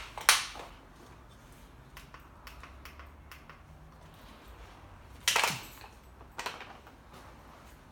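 Handling noise: a sharp clatter just after the start, a louder knock with a short falling scrape about five seconds in, a smaller knock a second later, and faint light tapping between them.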